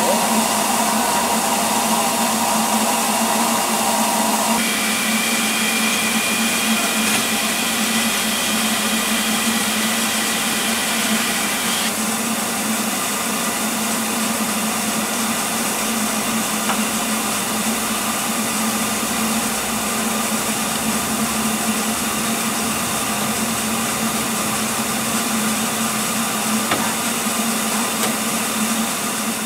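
Steady loud hiss of steam escaping from a stationary double Fairlie narrow-gauge steam locomotive. A whistling tone rides on the hiss; it jumps higher in pitch about four seconds in and fades out about twelve seconds in.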